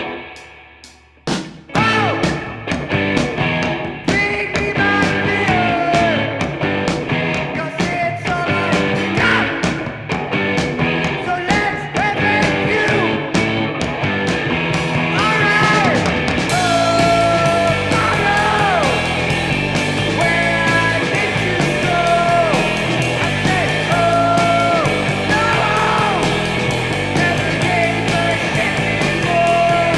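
Background music: a rock track with guitar and drums, carrying a gliding melody line. It drops away briefly at the start and comes back in about a second in.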